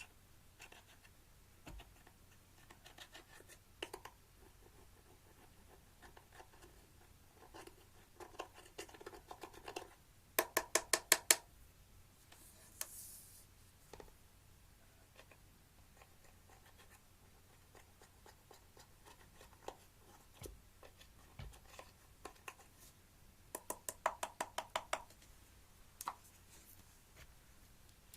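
Slime being squeezed and stretched by hand: faint sticky crackling, with two runs of quick, loud clicking pops, about ten seconds in and again about twenty-four seconds in.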